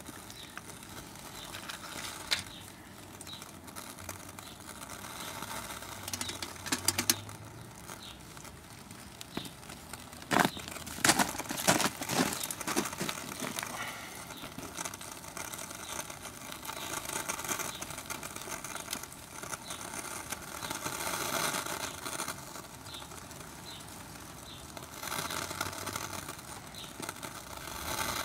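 Light wind noise outdoors that swells and eases, with a few sharp clicks and a cluster of louder knocks about ten to thirteen seconds in.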